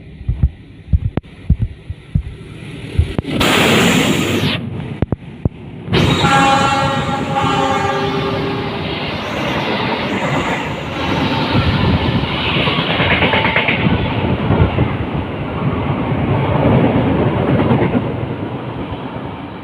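Train passing through a station: a few sharp clicks of wheels over rail joints, then about six seconds in a horn blast lasting a couple of seconds, followed by a long rush of wheels and carriages going by that fades near the end.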